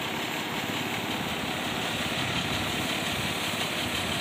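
Motorized rice thresher running steadily, its engine droning evenly.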